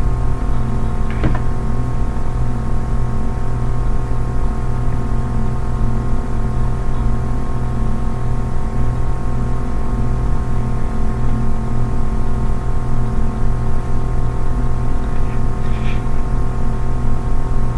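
A steady droning hum made of several held tones, with a faint tick about a second in and another near the end.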